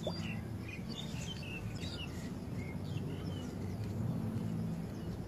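Small birds chirping in short, scattered calls over a low steady hum.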